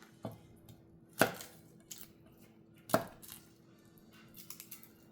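Two sharp knocks on a kitchen cutting board, about two seconds apart, among lighter taps and clicks, as garlic is being prepared.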